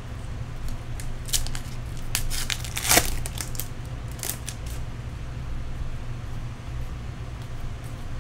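Foil wrapper of a trading card pack being torn open and crinkled: a run of sharp crackles starting about a second in, loudest around the middle, then dying away. A steady low hum runs underneath.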